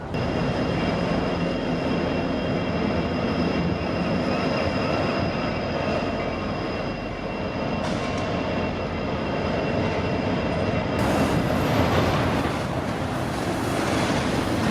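Cars of a BNSF trash (waste-container) freight train rolling past: a steady rumble of wheels on rail with a thin, high, steady wheel squeal. The noise gets brighter and fuller about eleven seconds in.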